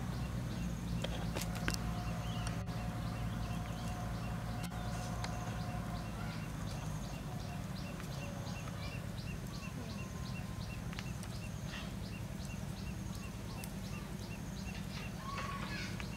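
Outdoor ambience: a steady rhythmic chirping, about three chirps a second, over a low steady hum.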